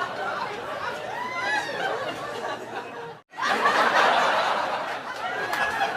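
People laughing, several voices overlapping, broken by a brief cut to silence about three seconds in, after which louder laughter resumes.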